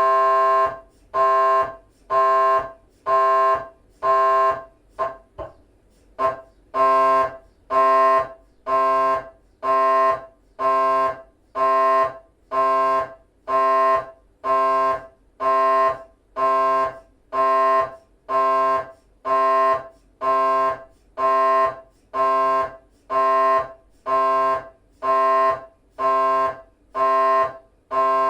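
A GE 3-tesla MRI scanner's gradient coils running a T1 axial FSPGR 3D sequence: a loud, pitched, organ-like buzz that starts abruptly, then switches on and off in a steady rhythm of about three pulses every two seconds. Around five seconds in there is a brief break with only faint clicks.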